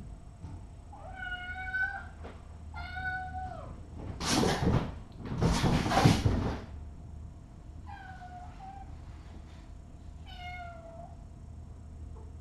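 A kitten meowing four times, short high calls that drop in pitch at the end: two close together early on and two more near the end. In the middle come two louder rushes of hissing noise, each about a second long.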